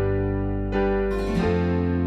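Background music led by keyboard chords, with held notes and a new chord struck twice.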